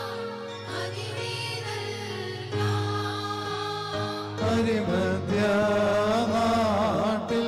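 Congregation singing a slow Malankara Orthodox liturgical hymn in unison, held notes at first, then louder with more voices from about four and a half seconds in.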